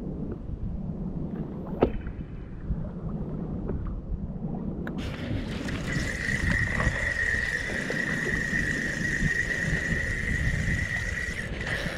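Wind and water noise on the microphone, with one sharp knock about two seconds in. About halfway through, a fishing reel starts a steady high whirr that lasts about five seconds and stops just before the end.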